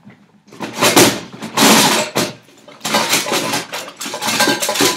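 Metal objects clattering and crashing off-screen in repeated bursts as someone rummages for a tool.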